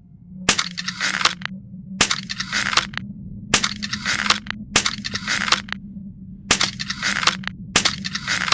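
Crossbow mechanism being worked: a series of harsh, rasping strokes, each starting with a sharp click and lasting about a second, repeated six times at intervals of a second or so, over a steady low hum.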